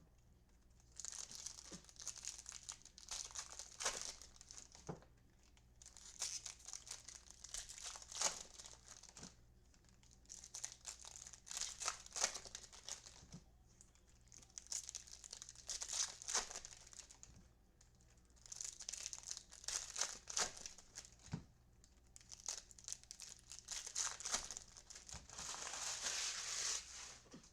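Trading-card pack wrappers being torn open and crinkled, in about six bursts of two to three seconds each with short pauses between.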